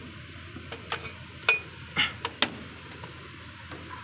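Hand tools clinking and knocking against the metal of a truck's starter motor mounting: five or six sharp metallic clicks over about a second and a half, the loudest with a brief ring.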